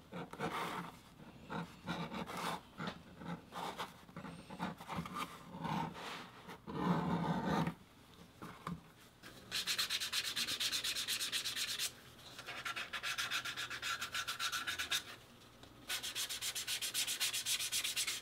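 An edge beveler scraping short, irregular strokes along the edge of thick vegetable-tanned leather. About nine seconds in, the edge is burnished with water: a burnisher rubbed quickly back and forth along it, about five strokes a second, in three runs with brief pauses.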